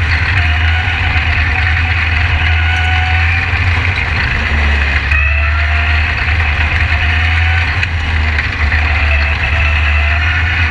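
SpeedSTR open-wheel race car's engine running hard, heard from inside the cockpit; it eases off briefly about halfway through, then its pitch climbs again as it picks back up.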